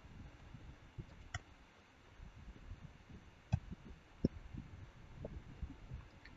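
A few sparse, faint clicks of a computer mouse and keyboard keys over a low room hum.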